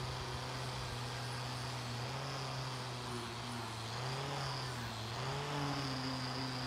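Angle grinder with a wire cup brush running against a rusty steel knife blade, scrubbing off the rust. A steady motor whine over a rough scratching hiss, the pitch wavering briefly about four to five seconds in.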